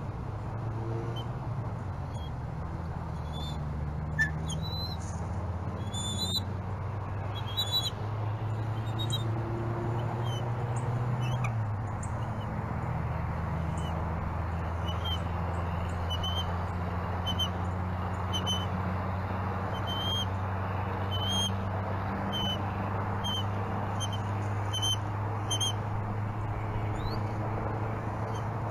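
Short, high-pitched peeping calls repeating about once a second, over a steady low hum.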